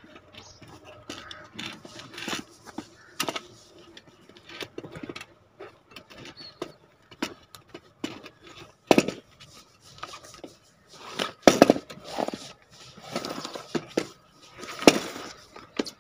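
Hands pulling a motorcycle inner tube out of a tyre still on its wheel rim: rubber rubbing and scraping, with irregular knocks and light clinks of the rim and tyre being handled.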